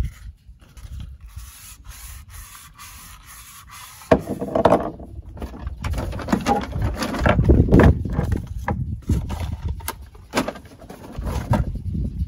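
Hands rubbing and rustling packaging: a small boxed part, then a brown paper bag, crinkled and scraped about, louder from about four seconds in, with a few sharp knocks.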